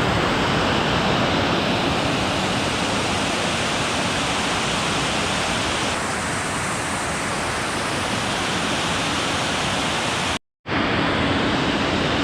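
Steady rushing of water pouring over and below a dam into the creek, an even wash of noise that breaks off for a moment about ten seconds in and then resumes.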